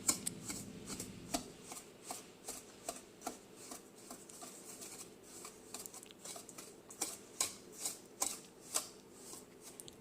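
Wire whisk stirring dry flour and cornmeal in a mixing bowl: irregular light scraping ticks of the wires against the bowl, a few each second, breaking up lumps.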